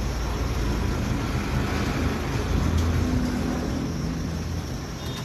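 A motor running with a steady low rumble and hiss, a little louder about two to three seconds in.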